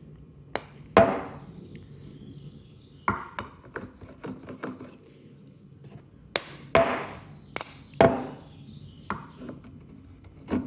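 Japanese pull plane taking short strokes along a chamfer on a wooden workpiece: a series of sharp wooden knocks, several of them running into a brief rasping swish of the blade cutting a shaving.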